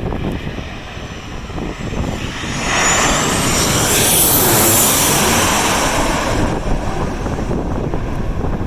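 Landing airliner passing low overhead, its engine noise swelling with a high whine about two and a half seconds in and dying away after about six seconds. Strong gusty wind buffets the microphone throughout.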